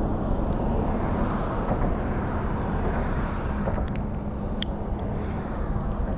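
Steady rumble of road traffic, with a few small sharp clicks about four to five seconds in.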